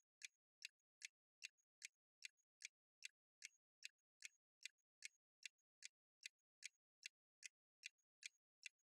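Faint clock-ticking sound effect marking a countdown timer, an even tick-tock at about two and a half ticks a second.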